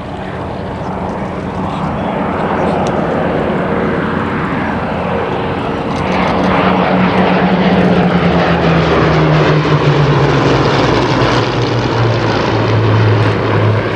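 Hawker Hurricane Mk I fighters' Rolls-Royce Merlin V12 engines running in a propeller flypast. The sound grows louder, and from about six seconds in the engine note slides down in pitch as the aircraft pass.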